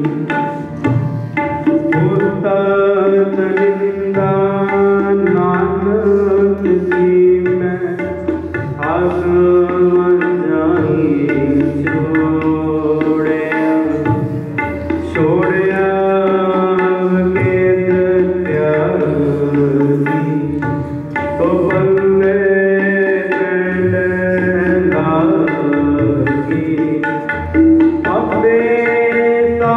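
Kirtan music without words: a harmonium melody over tabla.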